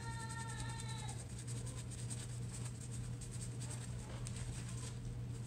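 Eyeshadow brush being wiped and dabbed on a paper towel to clean off powder: a quick run of soft scratchy strokes over a steady low hum. In the first second a drawn-out high-pitched call sounds and then stops.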